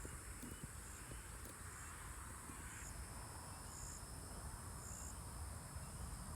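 Insects droning steadily at a high pitch, with a few short, slightly lower pulses of buzzing in the second half.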